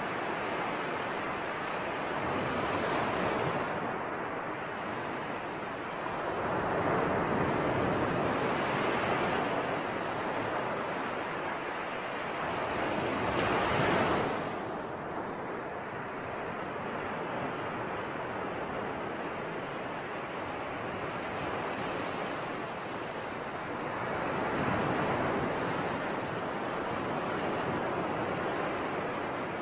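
Sea waves breaking and washing onto the shore, the surf swelling and fading every few seconds. The loudest wave comes just before the middle and falls away quickly.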